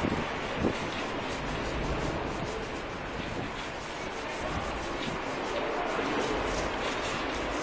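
Steady hand scrubbing of graffiti paint off a concrete wall with a small hand-held brush.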